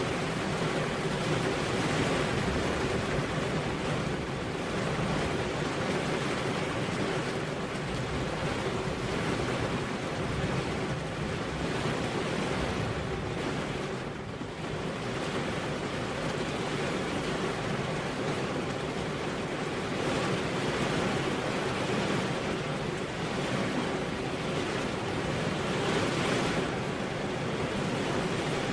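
Heavy rain pouring onto a road, with no thunder: a steady, dense hiss that swells and eases slightly.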